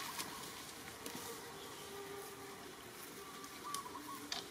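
Flying insects buzzing faintly over a steady outdoor hiss, with a couple of brief high chirps or clicks near the end.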